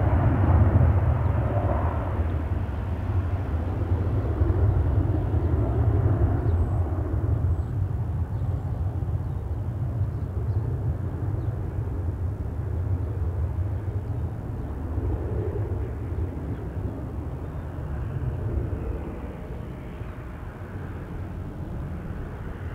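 Boeing 737 jet engines at takeoff power during the takeoff roll: a deep rumble with a rushing roar above it, slowly fading as the jet rolls away and lifts off.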